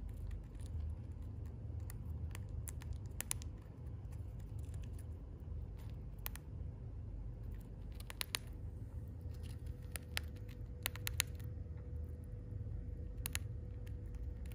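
A hamster gnawing and crunching crisp dried food: small, sharp, irregular clicks, some single and some in quick clusters, over steady low background noise.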